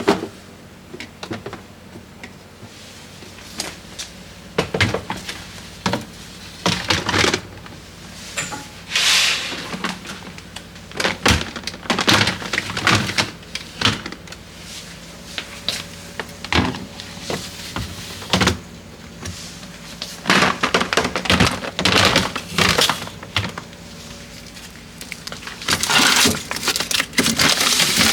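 Plastic freezer storage containers and frozen food packages being handled and set down: an irregular string of knocks, clicks and rustles.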